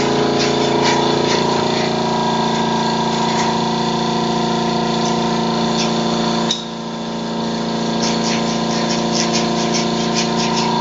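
Electric air compressor feeding a paint spray gun, running with a steady motor hum and scattered faint clicks. About two-thirds of the way through the level drops suddenly and then builds back up over a second or two.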